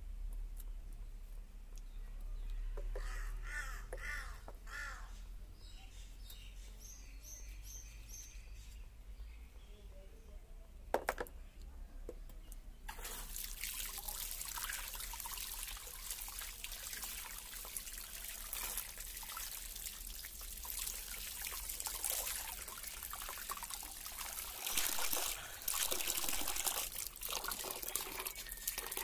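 Tap water running and splashing over fish and hands into a plastic basin as the fish are rinsed, starting about halfway through and running steadily after. Before it starts, a few short bird calls.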